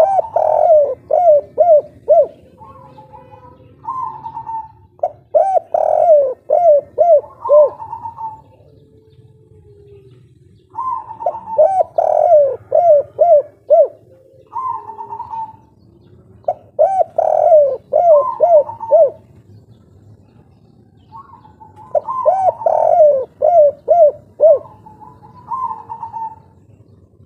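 Spotted dove (tekukur) cooing its 'kuk 3' song. Five phrases come about every five to six seconds, each a quick run of short coos followed by a few separate, slightly higher coos.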